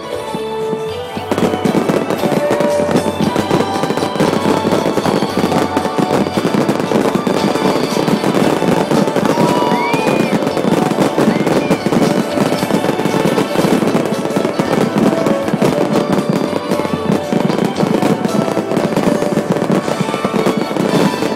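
Fireworks display going off in a dense, unbroken barrage of rapid bangs and crackling that starts about a second in, with music playing underneath.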